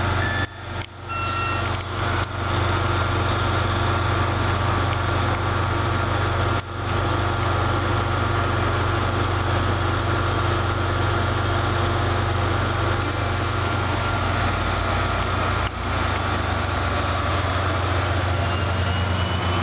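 NJ Transit diesel-hauled commuter train standing at the platform, giving a steady loud low hum with a few fainter steady tones above it. A short two-note chime sounds near the start.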